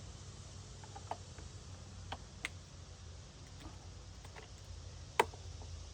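Scattered light clicks and taps from a fuel can and saw caps being handled after refuelling a chainsaw, the loudest about five seconds in, over a faint steady low hum.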